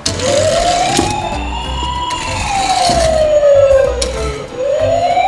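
Siren sound effect wailing slowly, its pitch rising for about two seconds, falling for about two, then rising again near the end, over background music.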